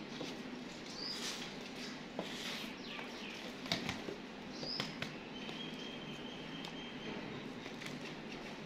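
A few short, high bird chirps over a quiet outdoor background, with a thin steady whistle-like tone in the middle. Light clicks and rustles come from plastic baskets and a knife being handled.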